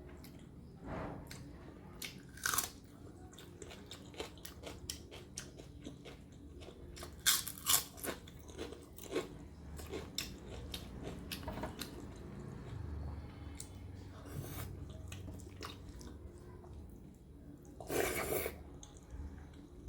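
Close-miked eating sounds: steady chewing with many small wet clicks, broken by a few louder crisp crunches of fried food being bitten.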